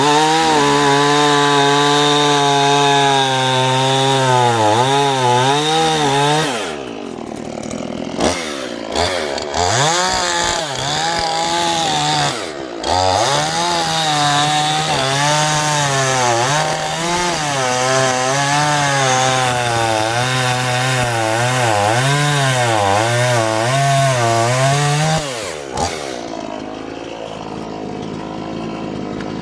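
Dnipro 42 two-stroke petrol chainsaw running at high revs in a cut, its pitch wavering as the dull chain loads it in poplar wood. It drops back briefly twice and settles to a low idle near the end.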